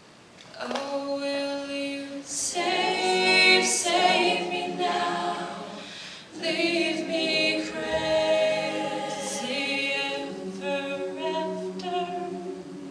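All-female a cappella group singing in harmony, coming in after a short hush about half a second in. Phrases are separated by brief breaks.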